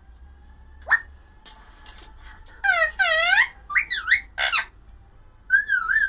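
Alexandrine parakeet (pahadi parrot) calling: a string of short, shrill squawks and chirps, several in quick succession from about a second in, many sweeping up and down in pitch.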